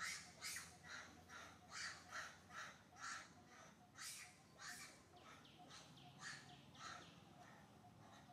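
A faint, rapid series of short, harsh animal calls, two or three a second, that thins out and stops about seven seconds in.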